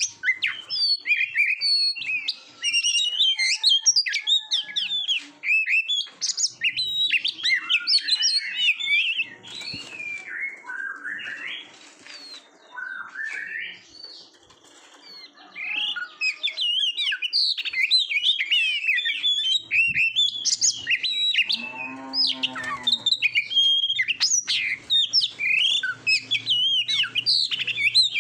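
Oriental magpie-robin singing a loud, fast, varied song of whistles, slurs and trills in rapid sequence. The song thins out and goes quieter for a few seconds about a third of the way through, then resumes at full pace; one short, lower, harsher note sounds about three-quarters of the way in.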